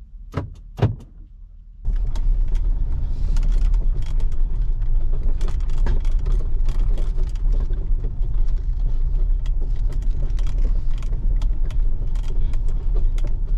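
Truck driving, heard from inside the cab: a loud steady low rumble of engine and road noise that starts suddenly about two seconds in, with many small clicks and rattles over it. Before that, two short clicks.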